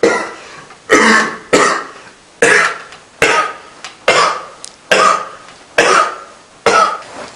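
A man coughing hard over and over, about eight harsh coughs roughly one a second.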